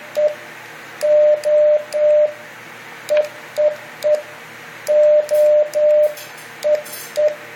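Morse code CW sidetone from a ham radio transceiver, hand-keyed with the microphone's up/down buttons, sending SOS repeatedly. The beeps are at one steady pitch in groups of three short and three long, over a steady hiss.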